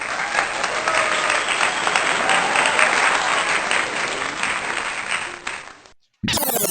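Applause from a crowd, cutting in suddenly and fading out about six seconds in. Just before the end, music with quick falling synthesizer sweeps starts.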